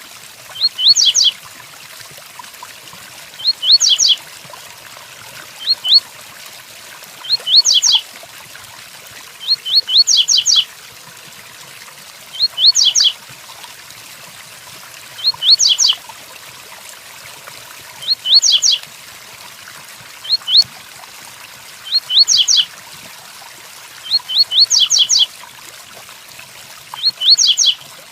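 Double-collared seedeater (coleiro) singing its 'tui tuí' song: short phrases of two to four quick rising whistled notes, repeated every two to three seconds, over the steady hiss of rain.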